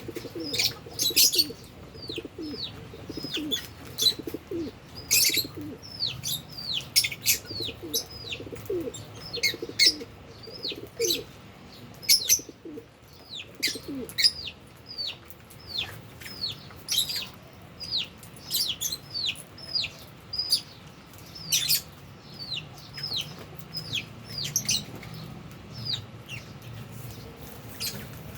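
A colony of Fisher's and albino lovebirds chirping nonstop: short high calls that fall in pitch, several a second, broken by loud sharp screeches. Lower, falling calls run under them through the first half.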